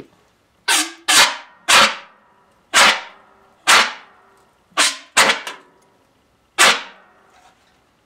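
A series of eight loud, sharp pops inside a microwave oven as old TV vacuum tubes are cooked, arcing and burning; they come unevenly, each cut off sharply and dying away within about half a second.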